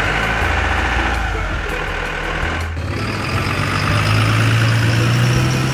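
A vehicle engine running steadily. About three seconds in the sound changes abruptly to a smoother hum that rises gently in pitch, with a faint high whine over it.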